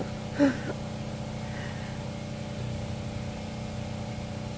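Steady hum of a generator engine running at constant speed, with a brief laugh about half a second in.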